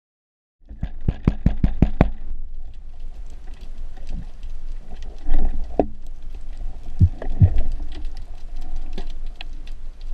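Underwater ambience through an action camera's housing: a low steady rumble of moving water, scattered small clicks and crackles, and a few dull knocks. About a second in there is a quick run of sharp clicks.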